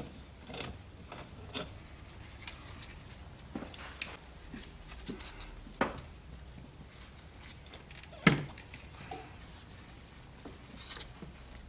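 Scattered clicks and metallic knocks of a hand tool against the fittings of a car's brake master cylinder as it is worked on, with a sharper knock about eight seconds in.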